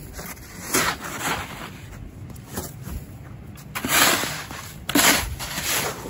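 Snow shovel scraping and scooping packed snow in a series of separate strokes, the loudest about four and five seconds in.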